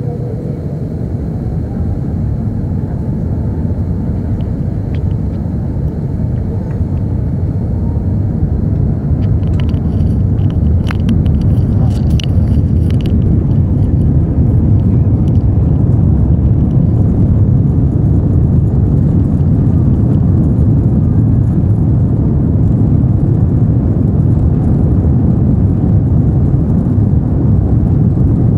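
Jet airliner heard from inside the cabin during the takeoff roll: engine noise and runway rumble build over the first dozen seconds and then hold loud and steady. An engine whine rises in pitch over the first several seconds, and a few sharp rattles come about ten to thirteen seconds in.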